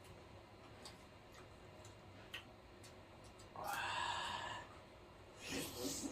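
Quiet eating sounds: faint clicks of chewing and lip smacking, with a short noisy smack or breath near the end. About halfway through, a brief high-pitched tone sounds for about a second.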